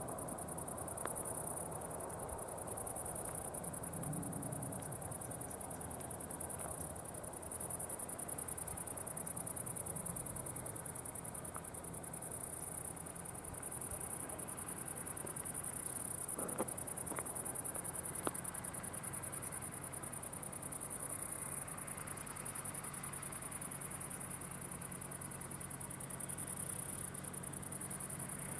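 Crickets chirping in the grass, a steady high-pitched trill that swells and fades every second or two, with a few faint clicks about two-thirds of the way through.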